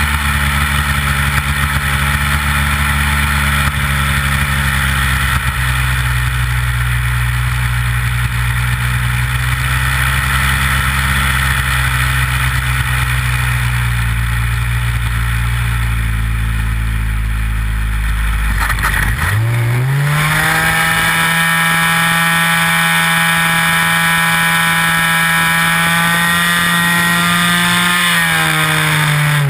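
Nitro glow engine of an RC Big Stik 60 model plane running hard in flight, heard up close from the airframe with wind rush over it. About two-thirds of the way in, the engine pitch rises sharply and holds higher, then drops again near the end.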